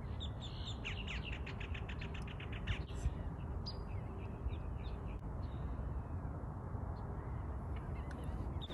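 Birds calling in the background, with a fast run of short chattering notes at about eight a second near the start. Beneath them is a steady low rumble, and two light knocks come about three seconds in.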